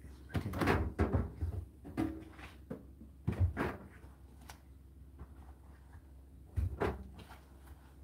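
Indesit IDC8T3 condenser tumble dryer running: a steady low hum from the machine under irregular thuds and knocks as the load tumbles and drops inside the drum. The knocks come in a cluster over the first few seconds and again once near the end.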